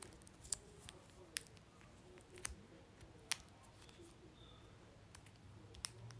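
A handful of faint, sharp clicks at irregular intervals, about half a dozen in all, over quiet room noise.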